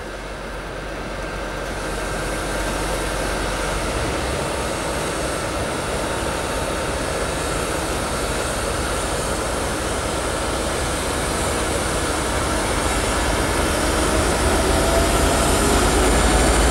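TEP70BS diesel passenger locomotive's 16-cylinder diesel engine running under power as it pulls a train away from a standstill, growing steadily louder as it draws near.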